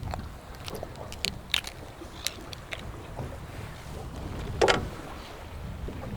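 Wind rumbling over the microphone on a small fishing boat, with a few sharp light clicks and one louder knock about four and a half seconds in.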